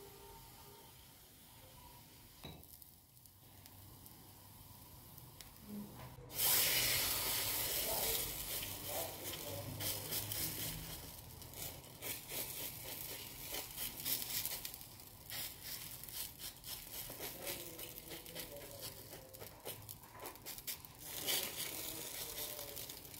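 Potato dough sizzling and crackling in hot oil in a small nonstick frying pan. The sizzle starts suddenly about six seconds in, when the raw dough goes into the hot pan, and crackles on steadily after that.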